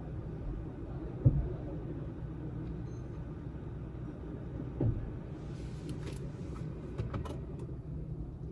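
Steady low rumble of a car running, with a sharp knock about a second in, a softer thud near five seconds and a few light clicks later.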